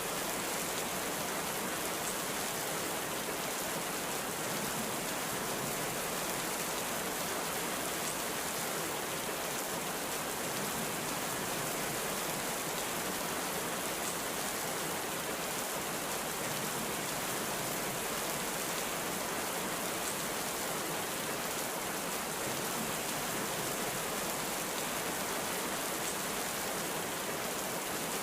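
Heavy rain falling, a steady, even hiss with no break or build.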